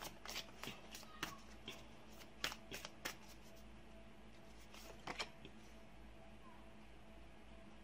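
Tarot cards being handled: a quick run of light clicks and taps in the first three seconds and a few more around five seconds in, over a faint steady hum.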